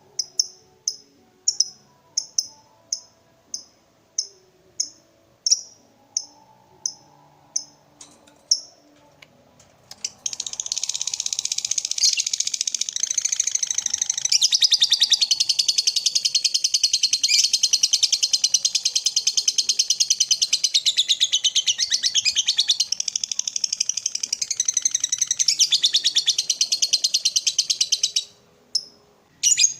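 Lovebird singing: first a series of single sharp chirps, about two a second, then from about ten seconds in a long rapid chattering trill (the 'ngekek' song) that runs for some eighteen seconds before breaking off. Chirps start again near the end.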